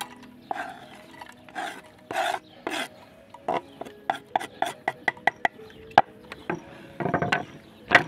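A kitchen knife scraping across a wooden cutting board in short strokes, sweeping chopped walnuts into a copper cezve. In the middle there is a quick run of light clicks and taps.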